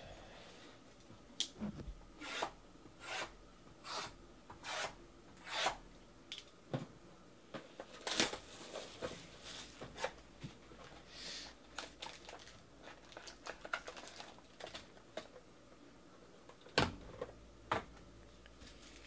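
Sealed trading-card boxes being opened by hand: the wrapping is slit with a knife and torn, then cardboard and foil packs are handled. First a run of short scratchy strokes a little over one a second, then rustling and crinkling, with two sharper clicks near the end.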